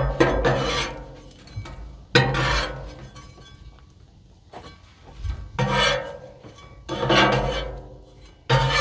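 Metal spatula scraping and clinking on the flat steel cooktop of a Blackstone griddle, several separate rasping scrapes at irregular intervals as toast is lifted and stacked.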